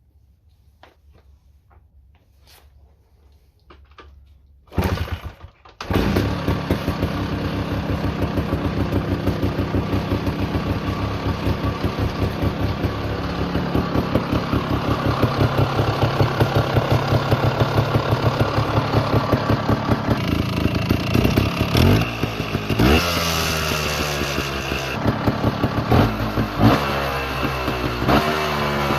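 Beta Techno two-stroke trials motorcycle engine being started: a few faint clicks, a brief burst about five seconds in, then it catches about six seconds in and idles with an even beat. In the second half it is given several quick throttle blips, each a rising and falling rev.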